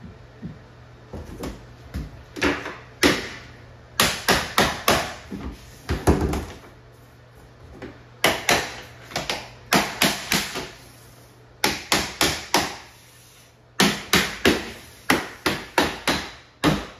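Runs of quick, sharp hammer taps, several in a row with short pauses between, knocking vinyl click-lock floor planks together as they are laid.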